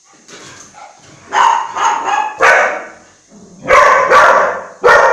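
Groenendael (Belgian Shepherd) dog barking: a run of three barks about a second and a half in, then three more near the end.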